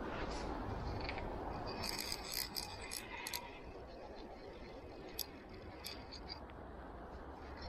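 A fly reel's click-and-pawl drag ratcheting in quick runs of clicks, mostly about two to three and a half seconds in, with a few single clicks later, over the steady rush of river water.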